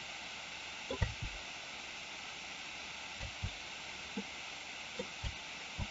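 Steady faint hiss of an open microphone, with a handful of short, soft low thumps scattered through.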